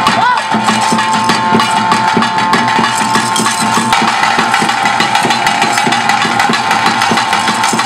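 Traditional bhuta kola ritual music: fast, steady drumming under a reed pipe holding one high note, with a short bend in pitch about a quarter second in.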